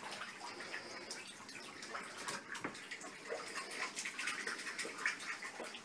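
Water and bubble-bath foam in a full bathtub, with faint small splashes and many short scattered crackles.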